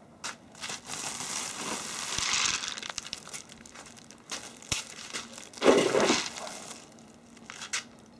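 A white woven plastic sack full of hazelnuts is rustling and crinkling as it is handled and carried. A short click comes just before the loudest rustle, about six seconds in.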